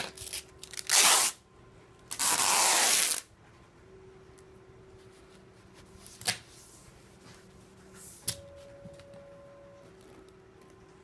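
Packaging tape pulled off the roll in two rasping strips, a short one and then a longer one, followed by a couple of light clicks.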